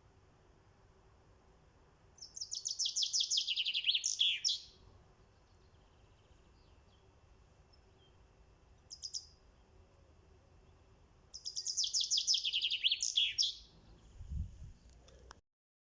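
A bird singing: two phrases of rapid, high chirps that each sweep downward, the first about two seconds in and the second about eleven seconds in, each lasting a little over two seconds. A short burst of chirps falls between them. The recording cuts off just before the end.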